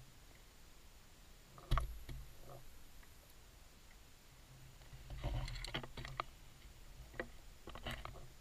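Underwater sounds of a scuba diver at work: a sharp knock about two seconds in, then bursts of crackling, rumbling exhaled bubbles around the middle and again near the end, over a low steady hum.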